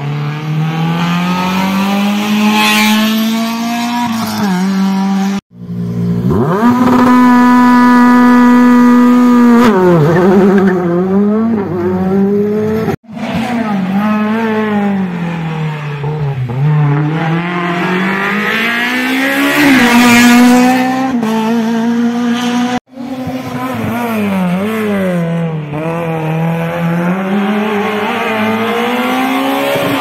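Rally car engines revving hard as one car after another brakes into a hairpin and accelerates out. Each time the engine pitch drops and then climbs through the gears, held high for a few seconds at one point. The sound cuts off abruptly between cars three times.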